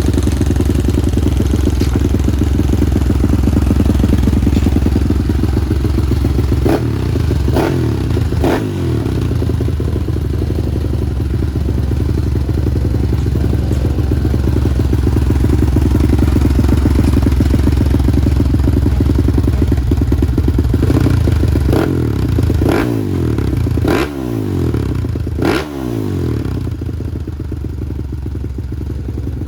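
Four-stroke trail motorcycle engine idling, blipped with quick throttle revs: three close together about seven to nine seconds in, and a cluster more in the last third.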